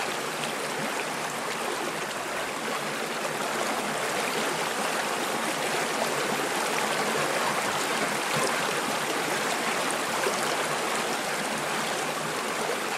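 Forest stream flowing over rocks, a steady rush of running water.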